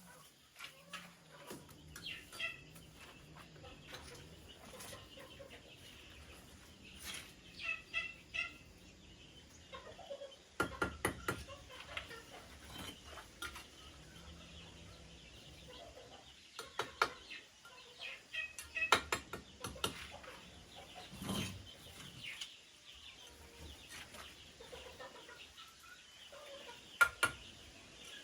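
Chickens clucking on and off, with scattered sharp knocks and clatters, several coming in quick clusters.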